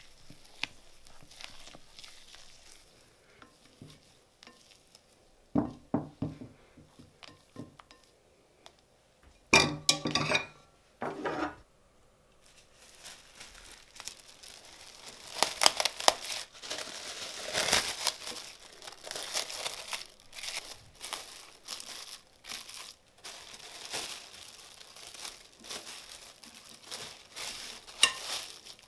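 Kitchen handling noises: crinkling and rustling, densest in the second half, with a few sharp knocks and clatters, the loudest about ten seconds in.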